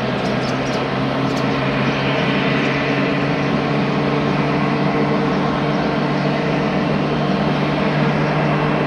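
Jet airliner engines running: a steady low hum over a broad rush of noise, slowly getting louder.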